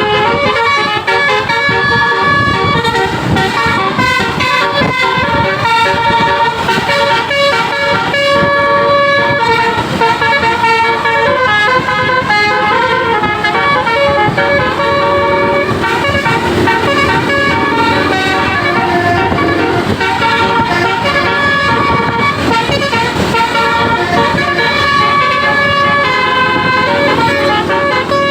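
A bus's basuri telolet horn playing a tune continuously, several horn tones sounding together and stepping to new notes a few times a second, over the low rumble of the bus.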